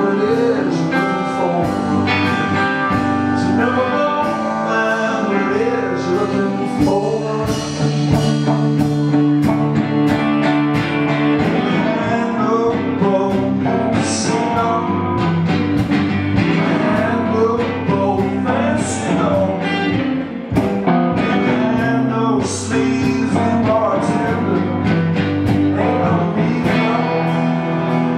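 Acoustic and electric guitar playing together live, the electric guitar through an amplifier.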